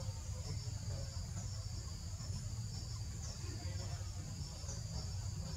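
Steady high-pitched insect chorus: a continuous shrill drone in two close pitches, with a few faint short chirps over it, above a constant low rumble.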